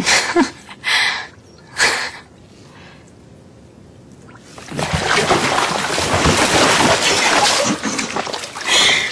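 Bathwater splashing and sloshing heavily as a clothed person goes into a full bath, starting about halfway in and lasting about four seconds. A few short splashes come before it.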